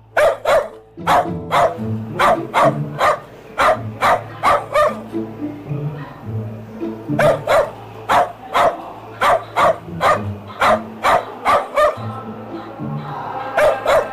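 Recorded dog barking played from a phone: a long run of sharp barks, about three a second, with two short breaks, over background music.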